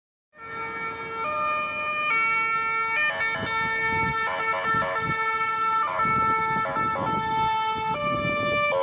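A siren-like pitched electronic tone that starts abruptly, holds a note and steps between pitches about once a second, with quick warbling passages, over a rough hiss.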